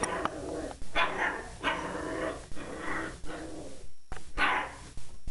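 Puppy barking over and over, about one bark a second, at a toilet plunger that it is afraid of.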